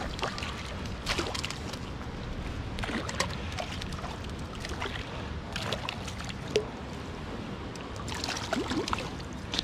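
Water splashing and trickling, with scattered sharp clicks and knocks and a busier burst of splashing near the end.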